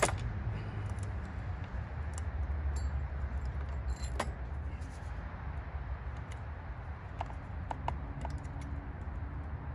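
Steel saw chain clinking and rattling as it is worked loose and pulled off a Stihl chainsaw's bar during a chain change, with a few scattered sharp metallic clicks over a steady low rumble.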